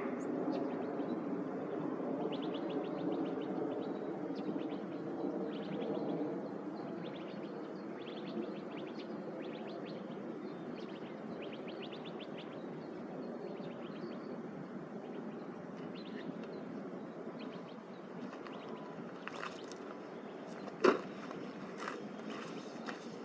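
Dawn outdoor ambience: small birds chirping in quick repeated trills, over a low droning hum that fades after the first several seconds. Near the end come a few sharp clicks, one of them a loud knock.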